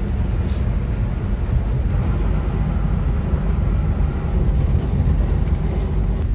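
Hino high-deck coach driving at speed, heard inside the cabin: a steady low rumble of engine and road noise.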